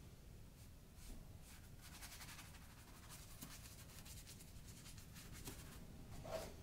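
Faint scratchy strokes of a paintbrush dragging paint across a painting panel, several in a row, with a soft knock near the end.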